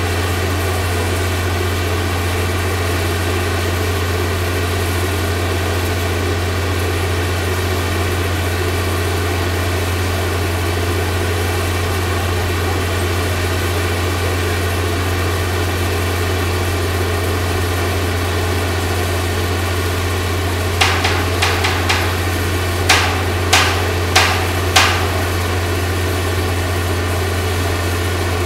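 Mobile crane's engine running steadily at idle. Near the end comes a run of about eight sharp knocks over some four seconds.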